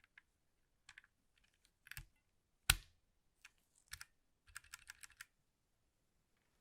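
Keys being pressed on a 60% mechanical keyboard: scattered single clicks and pairs, with one louder clack a little before the middle, then a quick run of about eight keystrokes past the middle.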